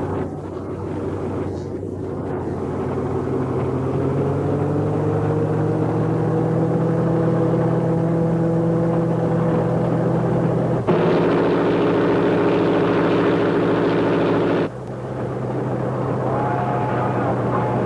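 Silver Streak train whistle sounding a chord of several tones. It holds steady and slowly rises in pitch, then sounds louder and brighter for about four seconds before dropping back suddenly.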